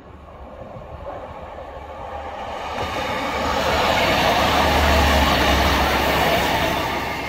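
Northern diesel multiple unit passing close by: engine and wheel noise building as it approaches, loudest about four to six seconds in with a low engine drone as the cars go past, then easing off.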